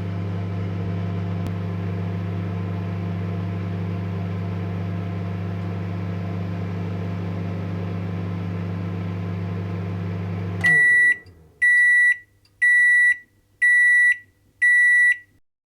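Microwave oven running with a steady low hum, shutting off suddenly about ten and a half seconds in, then sounding five loud, high beeps about a second apart to signal the end of the cooking cycle.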